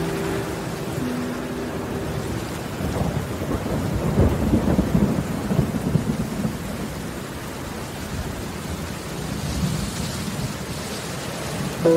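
Steady rain with a long roll of thunder that builds about three seconds in, is loudest around the middle, then dies back to the rain.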